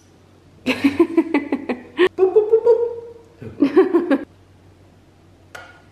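A woman's voice making non-word, laughter-like sounds: a choppy burst, then one drawn-out note, then another short burst.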